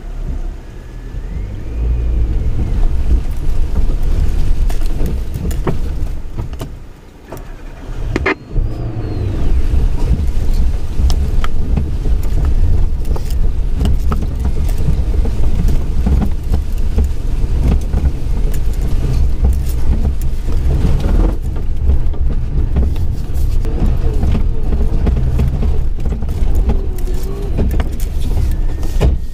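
Suzuki Jimny 4x4 driving over a rough unsurfaced lane: a steady low engine and road rumble with frequent short knocks and rattles. The level dips briefly about seven seconds in, followed by a sharp knock.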